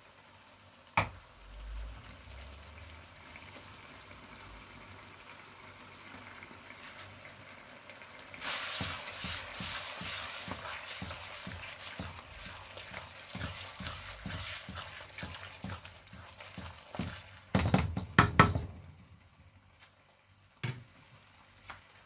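A wok of tomato and tuna sauce simmering, then a wooden spatula stirring and scraping through it as cracked eggs are mixed in, the sauce sizzling. Near the end come a few loud knocks of the spatula against the wok.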